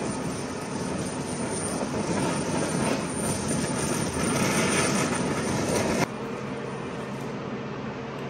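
A flame burning along charred, branching lines in a wooden board, with a steady rushing noise; the noise drops abruptly about six seconds in, leaving a quieter steady hum.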